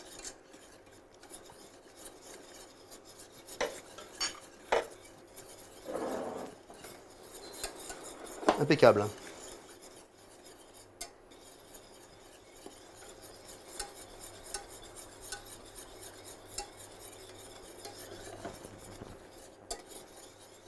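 Wire whisk stirring and scraping inside a stainless steel saucepan of milk and melting chocolate, with a few scattered clicks of the wires against the pan.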